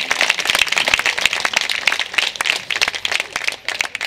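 Audience applauding, many hands clapping at once, dying down near the end.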